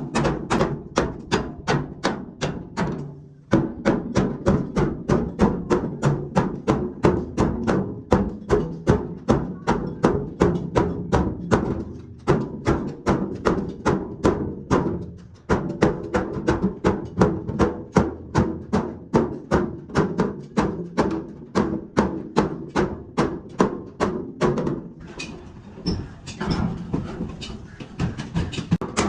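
Rapid hammer blows on a dented truck fuel tank, about three a second, each with a short metallic ring, as the bent tank is beaten back into shape. The hammering stops briefly a few times.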